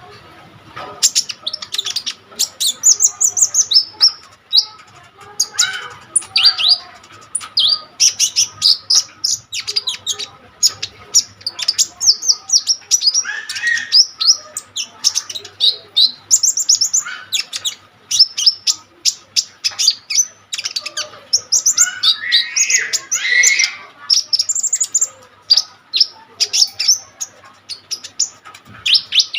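Kolibri ninja sunbird singing vigorously: a dense, unbroken run of fast, high chirps and trills, starting about a second in.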